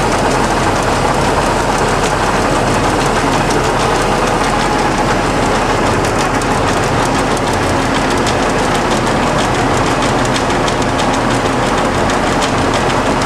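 1966 LeBlond 1610 Servo Shift heavy-duty engine lathe running under its 20 HP motor drive, with the spindle turning and the carriage on a slow power feed. It makes a loud, steady drone of motor and headstock gearing with a low hum, unchanging throughout.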